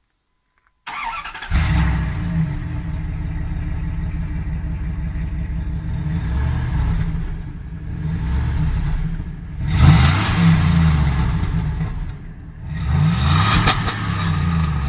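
Dodge Ram's 5.9-litre (360) Magnum V8 on its stock exhaust, starting up about a second in and then idling, with a few revs, the two strongest near the end.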